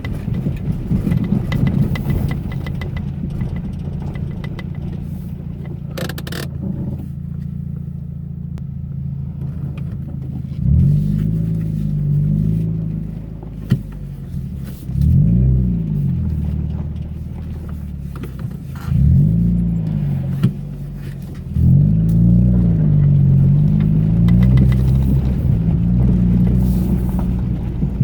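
Car engine running steadily while driving, then from about ten seconds in revving up and falling back several times as the car accelerates, with a couple of sharp knocks along the way.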